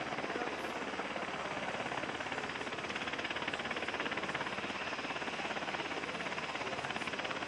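Helicopter rotor beating rapidly and evenly, a steady chop over a broad rushing noise.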